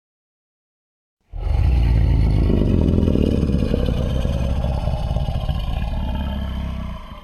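A giant-monster roar sound effect: a deep, gritty, drawn-out growling roar that starts suddenly about a second in, holds for about six seconds while easing a little, and cuts off near the end.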